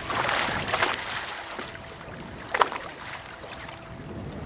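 Water splashing as a hooked fish is hauled up out of the sea alongside the boat, over steady wind and sea noise, with two short sharp sounds, about a second in and again about two and a half seconds in.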